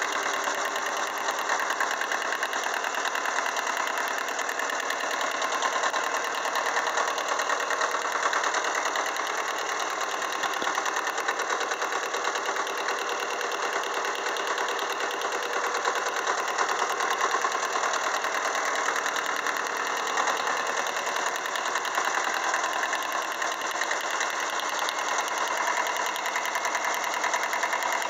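Kubota B5000 compact tractor's two-cylinder diesel engine idling steadily.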